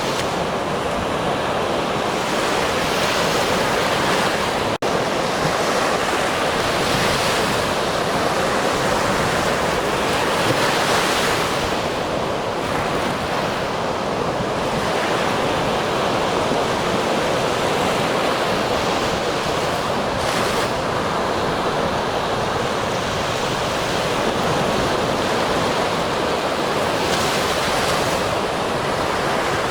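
Ocean surf: a continuous wash of breaking waves, swelling and easing every few seconds, with a split-second dropout about five seconds in.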